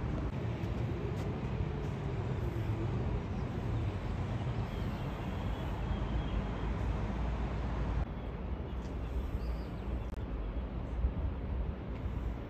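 Steady low engine rumble under an outdoor wash of noise. The high hiss drops suddenly about eight seconds in.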